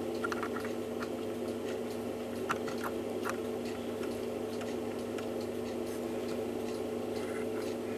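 A handful of faint light clicks and taps as small steel and brass levers are handled and fitted on the front plate of a Hermle 1161-853 clock movement, over a steady hum.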